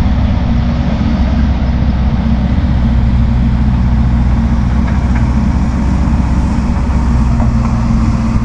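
Diesel engine of heavy field-tiling machinery running steadily at a constant speed: a loud, even engine drone with a strong low hum.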